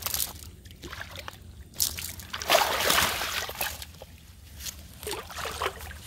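Water sloshing, splashing and running off a wet cast net as it is hauled out of a pond with a large fish in it. Several irregular splashes, the loudest near the middle, with dripping trailing off afterwards.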